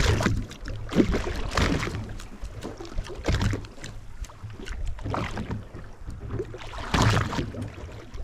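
Sounds of a boat on open water: a steady low hum with irregular washes of water and wind every second or two, the loudest near the start and about seven seconds in.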